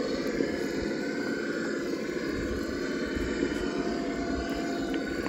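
Traxxas TRX-4 Land Rover Defender RC crawler's electric motor and geared drivetrain whirring steadily as it crawls over loose rocks.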